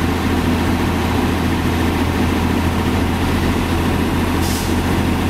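Large diesel engine idling steadily, a low, even drone with no change in speed.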